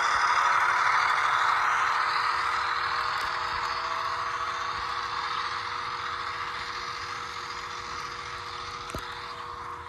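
HO-scale Walthers Mainline EMD NW2 model locomotive running on its track, the motor and helical gears whirring with a steady hum that fades gradually as it moves away.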